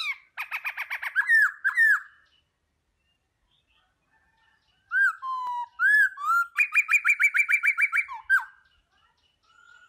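A songbird singing in two phrases, each made of a quick trill and whistled, swooping notes, with about three seconds of silence between them and a faint whistle near the end.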